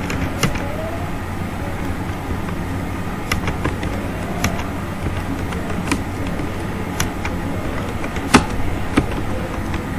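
Computer keyboard keys clicking now and then as a word is typed, over a steady low background rumble; the sharpest click comes about eight and a half seconds in.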